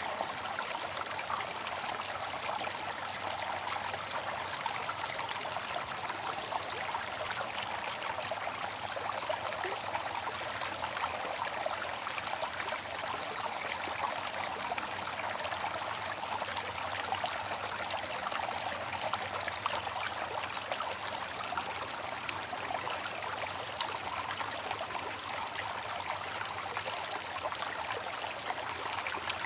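Water fountain splashing and trickling steadily, a continuous patter of falling water.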